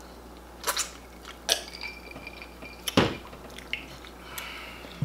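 Exaggerated open-mouth chewing of fried chicken: a scatter of short wet lip smacks, the loudest about three seconds in.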